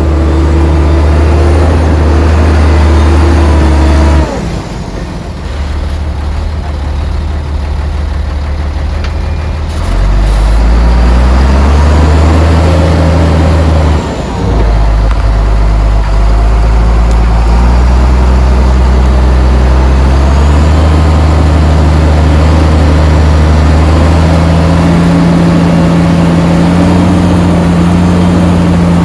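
Heavy diesel engine of earthmoving machinery running hard and changing revs. It falls quieter about four seconds in, works up again around ten seconds in, dips briefly near fourteen seconds, then slowly rises in pitch toward the end.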